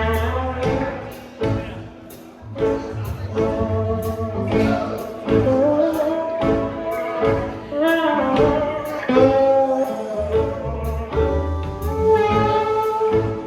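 Live band playing a bluesy rock song: guitar melody with bent notes over bass and a steady beat.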